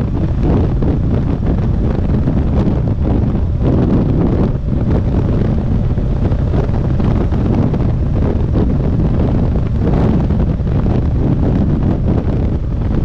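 Wind rushing and buffeting against the microphone of a BMW R 1200 GS motorcycle cruising at about 60 mph in sixth gear, with the bike's running noise underneath. The rush is steady and heavy in the low end.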